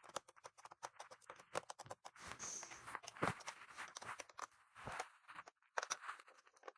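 Small screwdriver loosening screws in the plastic bottom case of an Acer Aspire 5749 laptop: faint, irregular clicks and scrapes.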